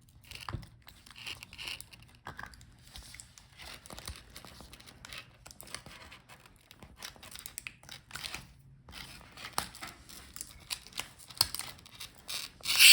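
A laptop display panel and its video cable being handled by hand, making scattered small clicks, taps and crinkly rustles, with a louder crackle near the end.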